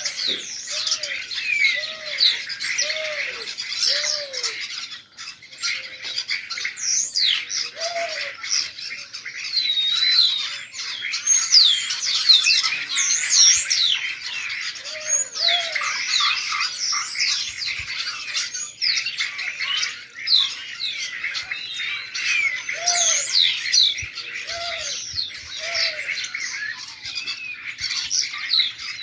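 A flock of small birds, sparrows by the look of it, chirping densely and without pause. A lower, short call repeats through it, four times about a second apart at the start and a few more times later.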